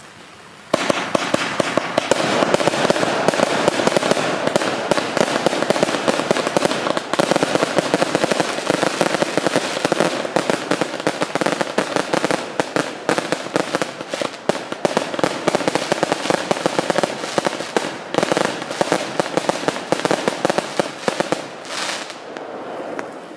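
A 150-shot compound firework cake firing: a rapid, unbroken barrage of shots and bursts that starts about a second in, keeps up for some twenty seconds, and thins out and fades near the end.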